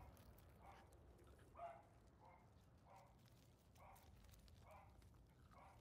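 Small dogs yapping faintly: a string of short, high barks about one a second.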